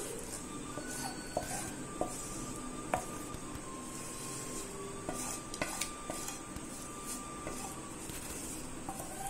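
A steel spoon scraping and knocking against a non-stick kadai as thick cooked-rice paste is scooped out into a bowl of batter, with a few sharp clicks scattered through.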